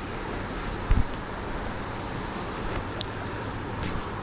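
Steady rushing of river water, with a short low thump about a second in and a sharp click about three seconds in.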